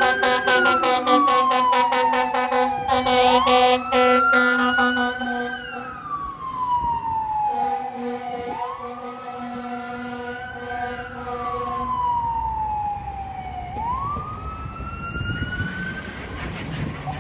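Fire apparatus responding with its siren wailing, rising and falling in pitch about every five seconds. It blasts its heavy air horn over the wail in long blasts, with a short one between them, and the horn stops about twelve seconds in.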